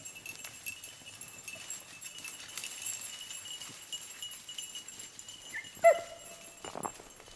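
A beagle gives one short bark with a falling pitch about six seconds in. Dry leaves rustle and crunch just after it.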